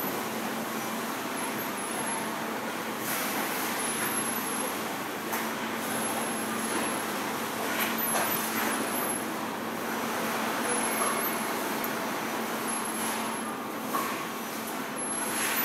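Steady din of factory machinery: a constant hum under a wash of noise, with a few short sharper sounds standing out now and then.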